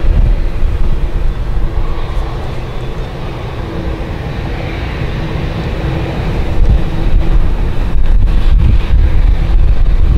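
Jet engines of a taxiing Boeing 787 Dreamliner, a steady rumble with a faint steady tone in it, mixed with heavy wind buffeting on the microphone. It grows louder over the last few seconds.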